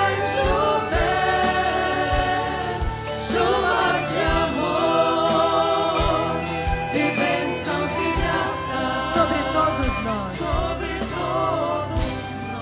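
Congregation singing a devotional song together, over instrumental accompaniment with a steady low beat.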